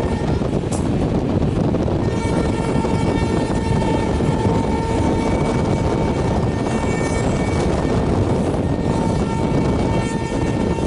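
WAP5-hauled Rajdhani Express train running through at speed, a steady loud rush and rumble of wheels on rails. A faint steady tone runs through it.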